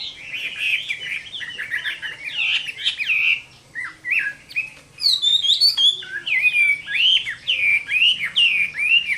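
A Chinese hwamei (họa mi) in full song: a rapid, varied run of loud whistled notes sweeping up and down, with short lulls about four and five seconds in before it bursts back in with higher, quicker phrases.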